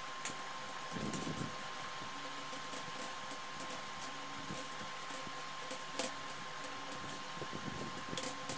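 Steady background hum with a faint high tone, with a few sharp clicks and faint rubbing as a rubber glazing gasket is handled and pressed into an aluminium window frame's channel.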